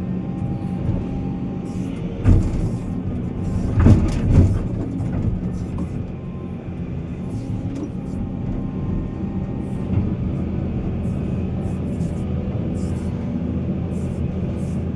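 Heavy earthmoving machine's diesel engine running steadily at a mine, with a few loud clanking knocks about two and four seconds in and another near ten seconds.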